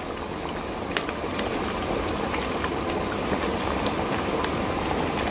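Mutton gravy bubbling in a large pot on the boil: a steady bubbling hiss with scattered small pops, and one sharp click about a second in.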